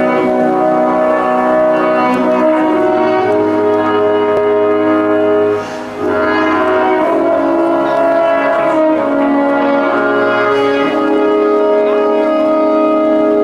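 Slow instrumental introduction of a ballad, with long held brass-like chords; the music dips briefly about six seconds in.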